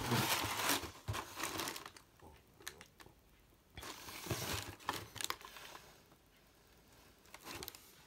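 A cardboard shoe box and tissue paper being handled: rustling and crinkling in irregular bursts, with a few light taps and clicks between them.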